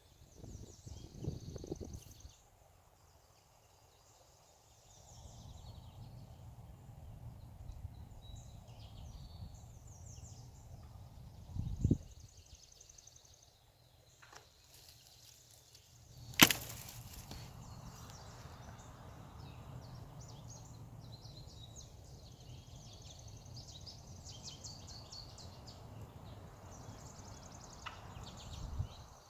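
One sharp crack of a strike on a tree about halfway through, with a duller thump a few seconds before it: the hunter hitting trees to drive off turkeys that won't leave. Under it runs a steady rustle, with songbirds chirping now and then.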